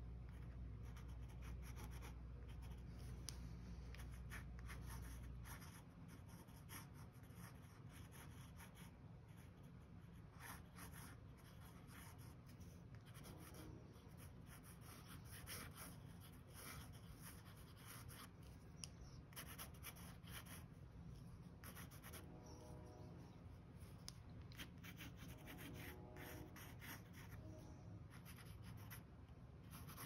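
Quiet scratching of a fine-tip black pen on sketchbook paper, in many short irregular strokes and scribbles. A low hum underneath stops about five seconds in.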